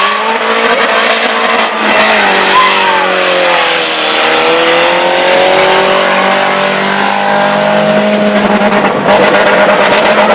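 Several race car engines running hard on the track. Their pitch dips about four seconds in and then climbs again.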